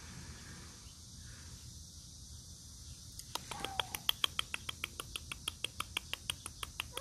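Faint outdoor background, then about three seconds in a fast, even clicking of cats chewing raw meat begins, about five clicks a second, with a brief high kitten mew as it starts.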